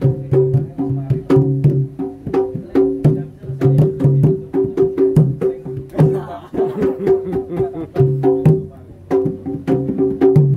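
Javanese jaranan percussion music: quick hand-drum strokes over repeated pitched notes in a steady rhythm.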